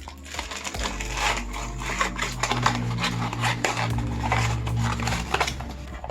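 Hands handling small cardboard blind boxes and packaging: a dense run of rustling, scraping and light taps.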